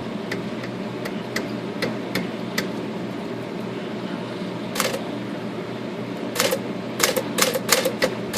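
Smith Corona Sterling manual typewriter being tried out to test its shift: a few light clicks, then sharp type strikes, closely bunched near the end. The typing checks the shift alignment after the left shift-arm bracket was bent, and the adjustment turns out to have made the misalignment worse.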